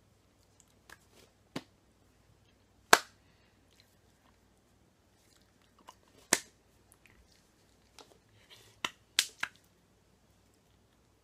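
Scattered sharp slaps and clicks as hands strike and brush together during rapid sign language. The loudest comes about three seconds in, and a quick cluster of three comes near the end.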